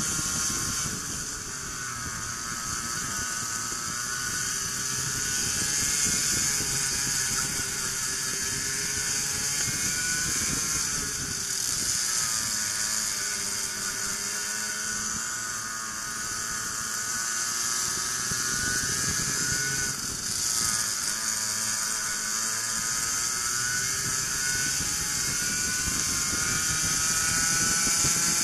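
Racing kart engines running hard on track, their pitch rising along the straights and falling off into the corners, with deep drops about halfway through and again about two-thirds through. A steady high hiss runs under the engines.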